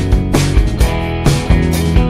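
Background rock music with guitar and a steady beat, about two strikes a second.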